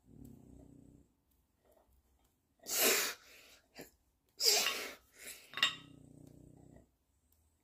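A man breathing out hard in three forceful puffs while lifting a dumbbell, with low strained groans at the start and after the last puff: the sound of effort on each rep.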